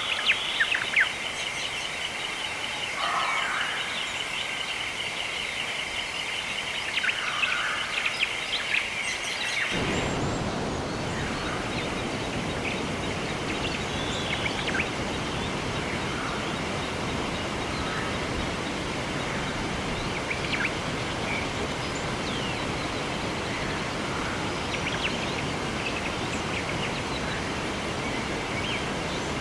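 Birds chirping over a steady high buzzing chorus for about the first ten seconds, then an abrupt cut to a steady rush of running water with occasional bird chirps over it.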